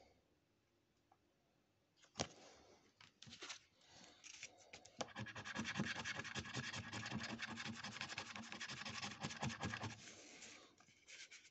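Coating being scratched off a paper National Lottery scratchcard on a cardboard surface: a click about two seconds in, a few short scrapes, then fast continuous scratching for about five seconds that stops shortly before the end.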